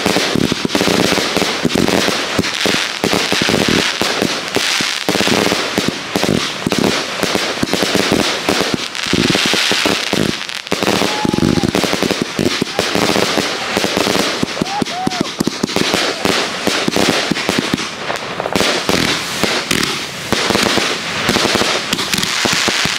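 Fireworks barrage: a rapid, unbroken string of bangs and crackling as aerial shells and crackling stars burst overhead in quick succession.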